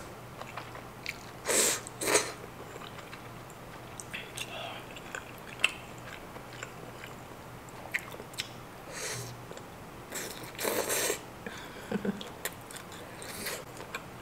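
Close-miked eating sounds: wet slurping of creamy udon noodles, then biting and chewing a piece of Korean pork sausage, with small mouth clicks throughout. The loudest slurps or bites come about one and a half and two seconds in and again around eleven seconds.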